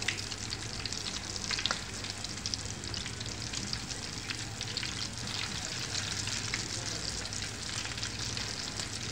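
Cornflour-and-maida-coated boneless chicken pieces deep-frying in hot oil in a kadai on medium heat: a steady sizzle with fine crackles.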